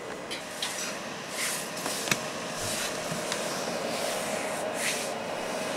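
EcoFlow Delta power station's cooling fans running steadily while it charges at about 735 watts, a steady white-noise hum with a faint tone. Over it, several short rubbing swishes of a hand on the unit's plastic casing, and one sharp click about two seconds in.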